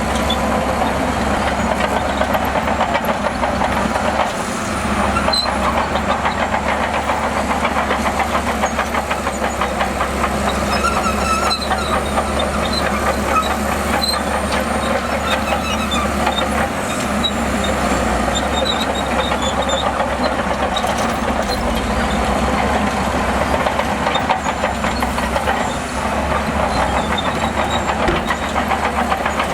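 Bulldozer's diesel engine running steadily under load with a fast, even throb, and a brief dip in level a little past four seconds in and again near the end.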